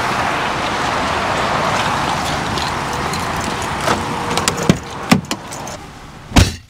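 Steady running noise of a vehicle for about four seconds, then fading, followed by scattered clicks and one sharp knock near the end.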